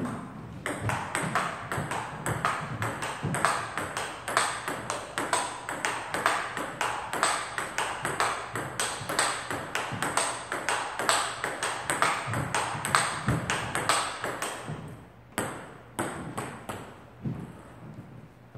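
Table tennis rally: the ball is struck back and forth by rubber paddles and bounces on the table, making a quick, steady run of sharp clicks, about four a second. The run stops about three quarters of the way through, followed by a few single knocks.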